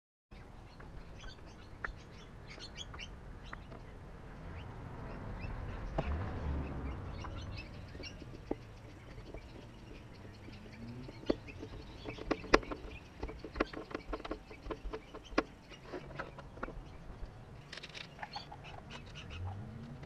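Wild birds chirping and calling, many short high notes. In the middle stretch come a series of sharp clicks and taps as a small plastic seed box is handled and set down on the wooden rail, and early on a low rushing noise swells and fades.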